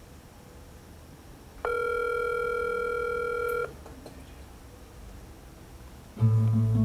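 Ringback tone of an outgoing phone call: one steady two-second tone starting about one and a half seconds in. Music comes in near the end.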